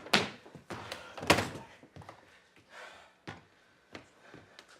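A string of thuds and knocks, the loudest about a second in, as a scale is put down on the stage floor and stepped on for a weigh-in.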